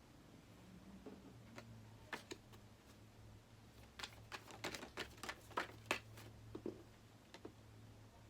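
Tarot cards being handled and shuffled: a scattering of sharp clicks and snaps, most of them in a quick run about four to six seconds in, over a faint low hum.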